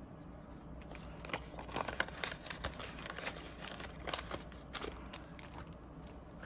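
Crinkles and sharp little clicks of clear plastic zipper pouches in a ring binder being handled as one is opened and a paper bill is slipped inside.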